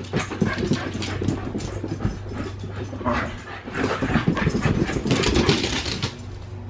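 A dog scrambling about on a bare plywood floor: quick clicks and scrabbles of its claws, busiest in the second half, over a steady low hum.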